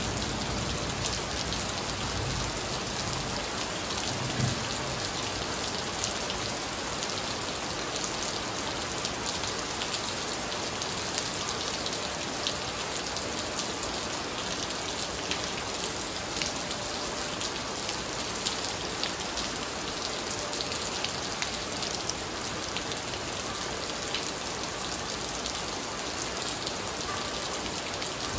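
Heavy rain falling steadily on a flooded tiled patio and garden foliage: an even hiss with dense patter of drops hitting standing water. The tail of a thunder rumble dies away in the first second.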